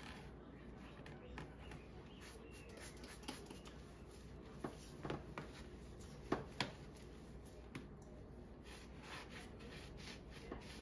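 Light, irregular knocks and clicks of household items being handled and set down, over a steady low hum; the sharpest two knocks come a little past halfway.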